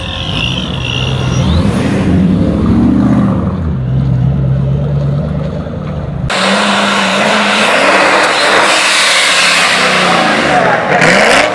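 Ford Mustang GT rally car's V8 engine running at low speed and blipped, rising and falling in pitch. About six seconds in there is a sudden change to a louder take: the engine revs hard amid a noisy hiss, with a few sharp knocks near the end.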